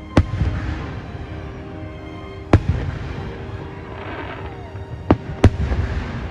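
Fireworks shells bursting: four sharp bangs, the last two close together, each trailing off in crackle, over the show's music.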